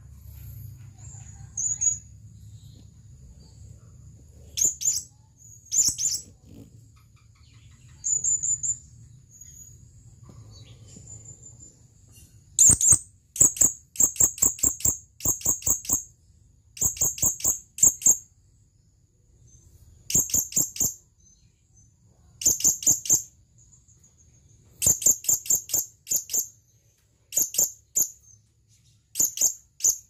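Male blue-crowned hanging parrot (serindit) calling: shrill, very high-pitched chirps. A few scattered calls at first, then from about halfway, quick strings of notes repeat every second or so. It is the male's call to a female.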